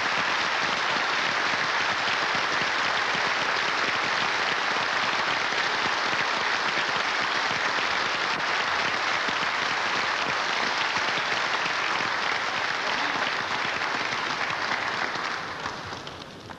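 Large audience applauding steadily, then fading out near the end.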